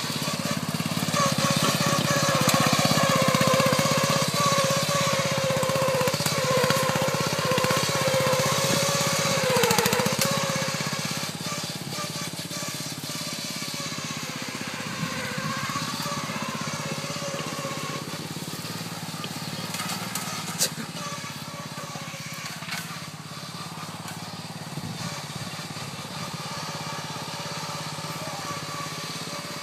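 Riding lawn tractor's engine running as it is driven through brush, its steady hum dipping in pitch about ten seconds in and then growing quieter as it moves away. A single sharp knock about twenty seconds in.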